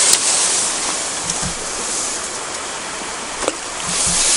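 Steady rushing of flowing river water, swelling briefly at the start and again near the end. A few faint clicks and soft low knocks as a pole fishing rod is swung out to cast.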